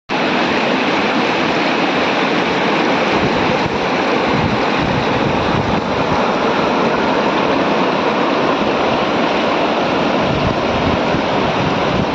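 Fast mountain river rushing, a steady loud wash of water noise with no let-up.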